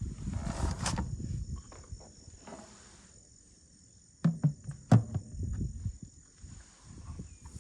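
Outdoor shoreline ambience: a steady high insect-like hum, a low rumble in the first second or so, and a few sharp knocks about four to five seconds in.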